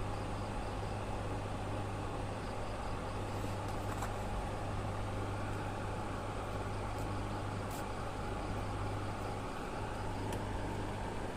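A steady low hum over an even background noise, with a few faint clicks.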